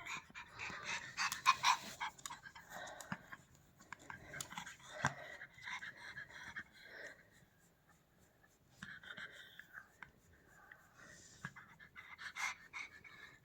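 Pomeranian panting in quick, quiet breaths, pausing for a couple of seconds about seven seconds in before starting again.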